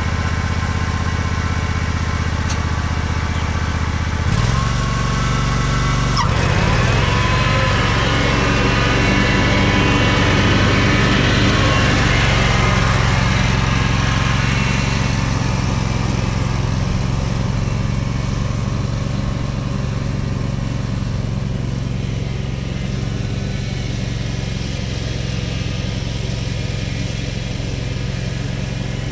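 Dixon zero-turn ride-on mower's engine running steadily under mowing load with the cutting deck engaged. It grows louder as the mower passes close about a third of the way in, then eases off as it drives away.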